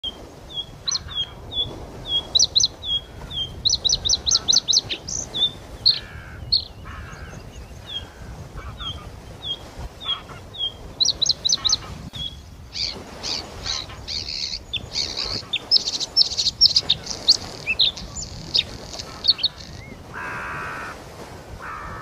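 Bluethroat singing: a string of short high chirps, about two a second, broken by quick runs of ringing notes. In the second half the song becomes a denser, more varied run of notes.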